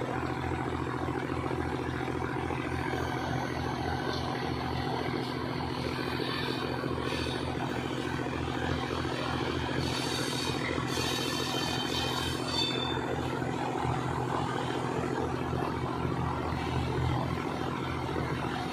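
Diesel engine of a track-maintenance train running steadily as the train shunts slowly past, a low pulsing drone. A brief high squeal rises over it about ten seconds in.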